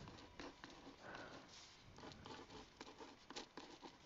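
Faint scratching of a pen writing on paper, in many short quick strokes.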